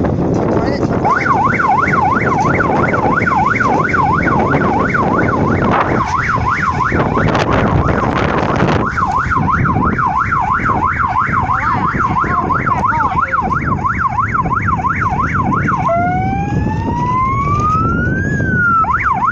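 Aftermarket three-tone police-style siren on an electric bicycle, sounding a fast warble of about three or four cycles a second. Near the end it switches to a slower wail that rises and falls once, then goes back to the fast warble. Low wind and road rumble from riding runs underneath, with a burst of rushing noise partway through.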